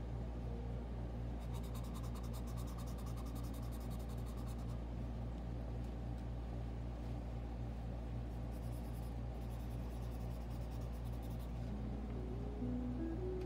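Pencil scratching on sketchbook paper in two spells of shading strokes, over a steady low hum. A few soft musical notes come in near the end.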